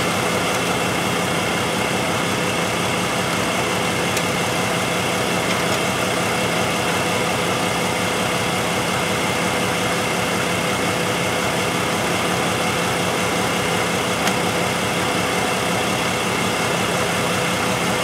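2005 Jeep Liberty's 3.7-litre V6 idling steadily while misfiring on cylinders 4 and 6, whose ignition coils have shorted secondary windings.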